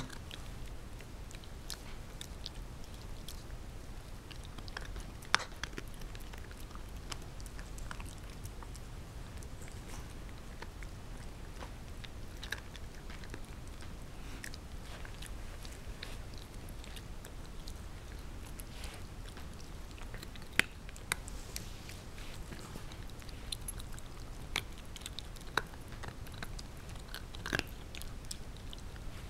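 Shiba Inu puppy chewing a crispy, brittle chew treat: irregular wet crunches and sharp cracks, a few of them louder.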